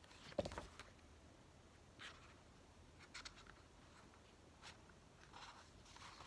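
Pages of a K-pop album photo book being turned by hand: a sharp tap or slap about half a second in, then several faint paper rustles and flicks as page after page is turned.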